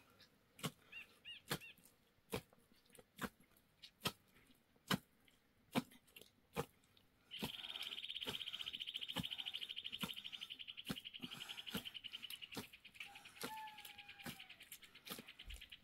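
Sharp knocks at a steady pace, a little more than one a second. About halfway through, an insect's high, fast-pulsing buzzing trill starts up and carries on over them. A few faint bird chirps sound near the start and once later.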